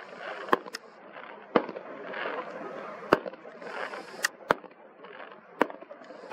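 Fireworks display going off in the sky: about seven sharp bangs at irregular intervals, a second or more apart, over a steady background hiss.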